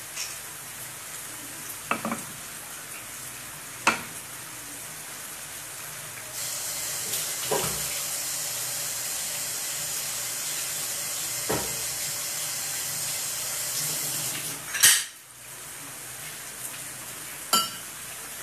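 Curry sauce simmering and sizzling in a non-stick frying pan, a steady hiss that gets louder about six seconds in, as the freshly added curry powder cooks off its raw smell. About six sharp clinks of kitchenware sound through it, the loudest near the end.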